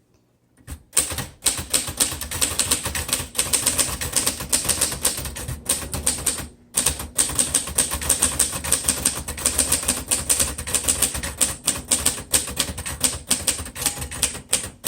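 1946 Royal Arrow portable typewriter being typed on at speed: a fast, continuous run of typebar strikes on the platen. It starts about a second in and breaks off briefly a little past halfway.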